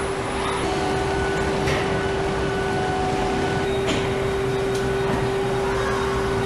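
Car assembly plant floor ambience: a steady machinery hum with a constant tone, and a few faint clicks of metal parts being handled.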